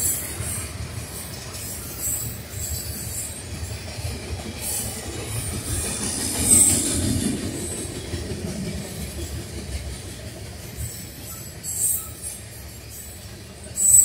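Freight cars of a passing manifest freight train, mostly tank cars, rolling by: a steady rumble of steel wheels on rail, with brief high-pitched squeals about six and a half seconds in, at about twelve seconds and near the end.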